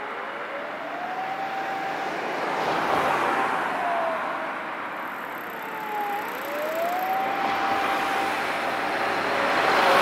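Fire engine siren wailing: one tone slides up, holds, dips about halfway through and climbs again. Under it is the steady hiss of road traffic, which swells twice as vehicles pass.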